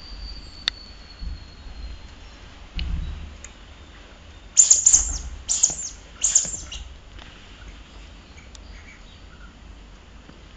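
Rubber squeaky dog toy squeaking in three quick bursts about halfway through as a puppy chews on it, each a high squeal falling in pitch. A few light knocks and a soft thump come before the squeaks.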